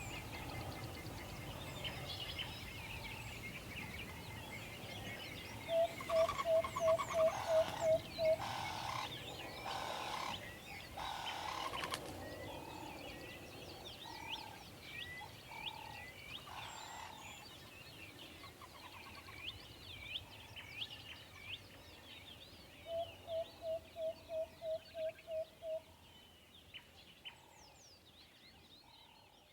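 An owl giving a quick run of about eight short hoots, twice, some fifteen seconds apart, over a background of small birds chirping.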